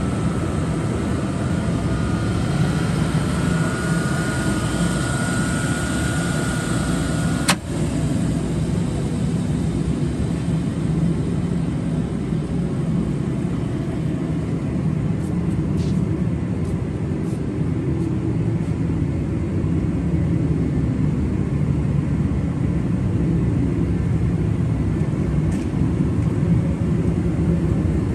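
Large Poreba gap bed engine lathe running, a steady low mechanical rumble from its motor and headstock gearing. A faint high whine stops at a sharp click about seven seconds in.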